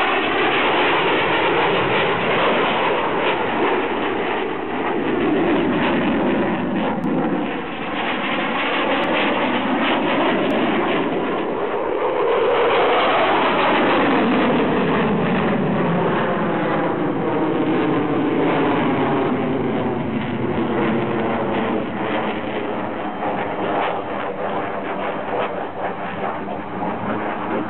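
Eurofighter Typhoon's twin EJ200 turbofans making loud, continuous jet noise during a low display pass, with afterburners lit as it pulls into a climb. The tone sweeps up and down about twelve to fourteen seconds in as the jet passes.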